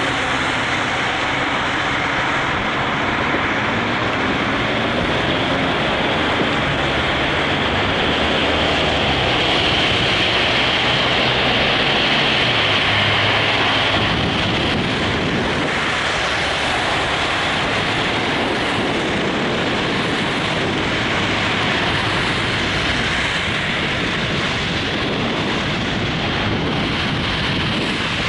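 Steady road and wind rush of a car being driven, with a low engine hum that shifts in pitch and drops away about halfway through.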